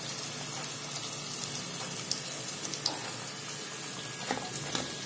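Hot oil sizzling steadily around stuffed wheat-flour somas as they deep-fry, with a few faint clicks.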